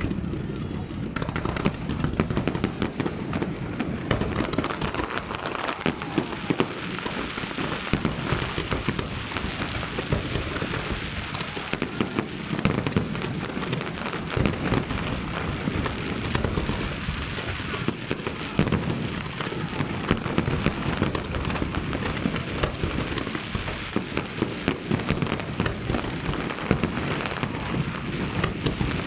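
Fireworks display: a dense, unbroken crackle with many sharp bangs, from aerial shells bursting and volleys of comets being fired.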